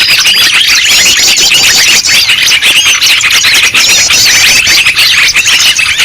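A loud, dense din of many small birds calling at once, with rapid chirps and repeated quick trills overlapping without a break. It is a bird-luring track ('noisy bird sounds') made to draw in all kinds of small birds.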